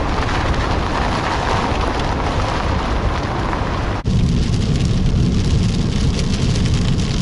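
Heavy rain, a loud steady noise. About four seconds in it cuts off abruptly, and a deeper, rumbling noise follows.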